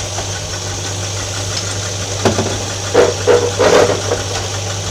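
1947 Linn Speed Van's Hercules QXC-3 six-cylinder engine idling steadily, heard from the cab. A few short clunks come in the middle.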